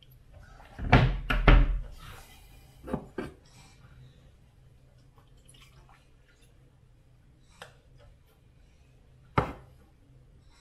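Clunks and knocks of kitchen things being handled: a cluster of loud knocks about a second in, two smaller ones around three seconds, and one sharp knock near the end.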